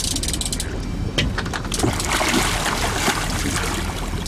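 Large chinook salmon thrashing and splashing at the surface beside the boat as it is brought to the net, with rapid ratcheting clicks from the fishing reel's drag.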